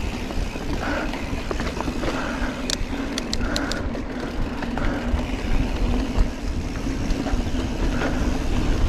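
A 2019 Giant Trance 3 full-suspension mountain bike rolling fast down a dirt singletrack, heard from its handlebar: a steady rumble of knobby tyres on the trail, with wind buffeting the microphone. A short run of sharp clicks comes about three seconds in.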